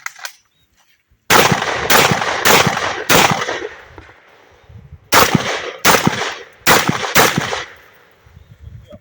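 A shotgun fired eight times in two quick strings of four, about a shot every 0.6 s, with a pause of about two seconds between the strings; each shot rings out with a short echo.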